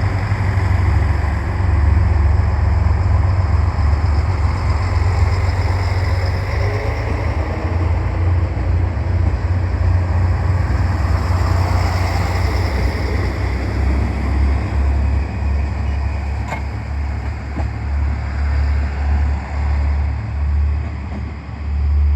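Diesel railcar engine running with a heavy, steady low rumble. A single sharp click comes about sixteen seconds in.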